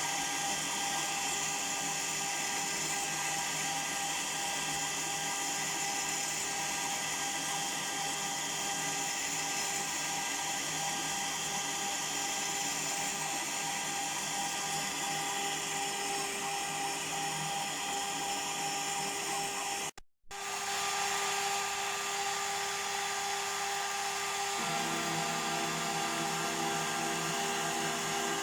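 High-speed CNC router spindle whining steadily as a four-axis machine mills beech wood. The sound drops out for a moment about twenty seconds in, then carries on with a slightly different pitch mix.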